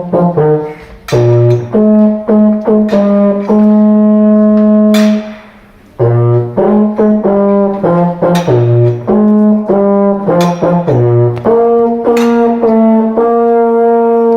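Baritone horn music: a melody over low notes on the beat, with a long held chord a few seconds in and a brief break about halfway before it resumes.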